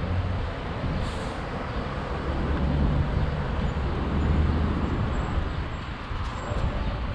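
Steady outdoor rumble of road traffic and wind on the microphone, with a brief high hiss about a second in.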